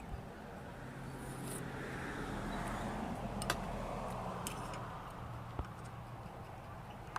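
A passing motor vehicle, its noise swelling to a peak midway and then fading away over a low steady hum, with a few sharp clicks.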